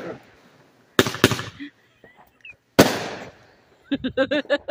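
Aerial fireworks bursting overhead: two sharp bangs close together about a second in and a third near three seconds, each trailing off in a short echo. A person's voice breaks in near the end.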